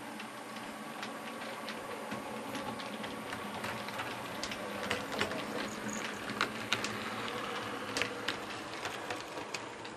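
OO gauge model diesel multiple units running over the layout's track: a steady whirring run with frequent irregular clicks as the wheels pass rail joints and pointwork.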